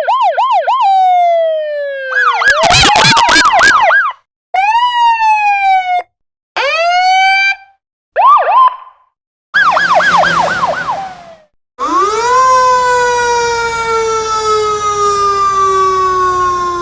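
A string of short emergency-vehicle siren samples with brief silences between them: fast warbling yelps, quick rising and falling sweeps, and near the end one long tone that slowly falls in pitch.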